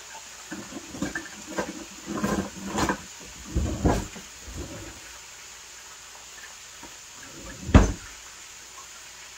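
Rummaging through a kitchen for tongs: a run of clatters and knocks over the first few seconds, then one loud thump a little before the end, like a cupboard door or drawer being shut.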